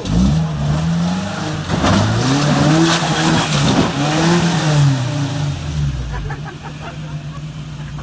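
Toyota Tacoma's 3RZ 2.7-litre four-cylinder engine revving up and down several times under load as the truck crawls up a rock ledge. A burst of tyres scrabbling on rock comes about two to four seconds in, and the engine settles to a lower, quieter run near the end.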